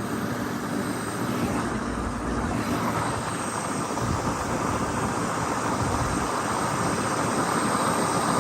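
Sonalika RX tractor's diesel engine running steadily as the tractor drives along.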